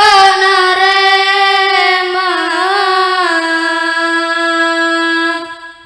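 A boy's voice singing one long unaccompanied note into a microphone, its pitch wavering and turning in the middle before it is held steady and fades out near the end.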